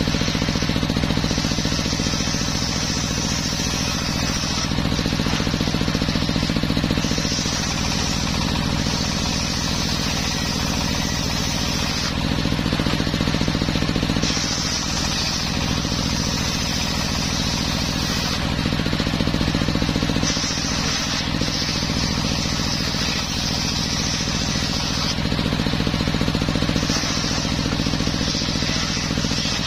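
Homemade circular sawmill running steadily while sawing a teak log into beams, with a higher hiss that comes and goes every few seconds.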